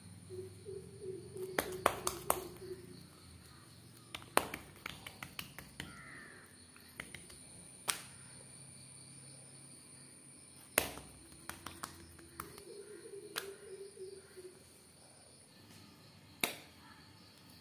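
Oiled wheat parotta dough being handled on a countertop: sharp slaps at irregular intervals, several seconds apart, with quicker soft sticky pats and smacks between them as the thin sheet is stretched, lifted and folded.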